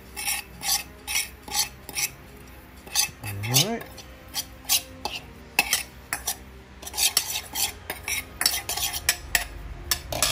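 A metal spoon stirring and scraping dry ground spices around a stainless steel bowl: a quick, irregular run of clinks and scrapes against the metal.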